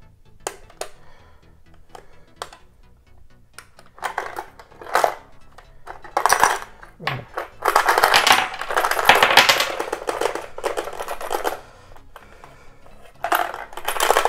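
Coins rattling inside a small plastic coin bank as it is shaken upside down, and clinking out onto a tabletop. A few scattered clicks at first, then a long dense clatter from about four seconds in, and another burst near the end.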